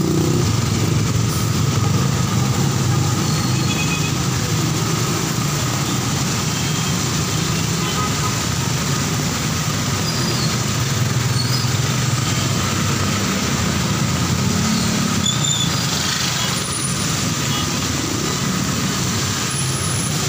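Heavy traffic of motorcycles, cars and buses running on a rain-soaked road: a steady low engine drone under the even hiss of heavy rain and wet tyres.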